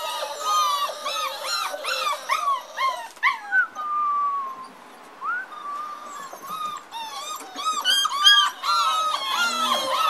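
A litter of six-week-old lurcher puppies whining and yelping together, many short high-pitched calls overlapping, with one longer drawn-out whine and a brief lull about halfway through before the calling picks up again.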